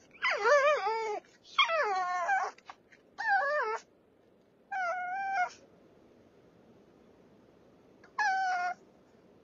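Long-haired Brussels Griffon whining and crying in five high, wavering cries, the first two sliding down in pitch. The last cry comes after a gap of nearly three seconds. It is the distress of a dog with separation anxiety.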